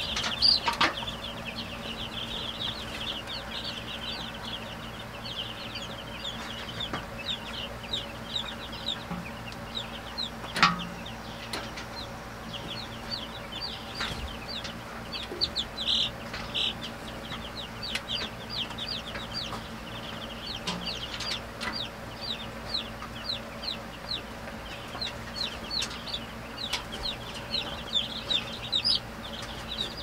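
A brooder full of chicks peeping continuously, many short high falling peeps overlapping. A few knocks sound as a galvanized metal feeder is handled and set down, the loudest about ten seconds in.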